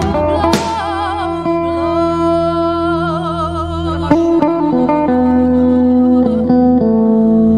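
Slow worship music with guitar over sustained held chords and a steady bass. A voice sings with vibrato during the first couple of seconds.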